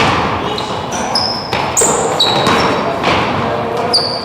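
Basketball bouncing on a court floor during play, with several short, high sneaker squeaks scattered through.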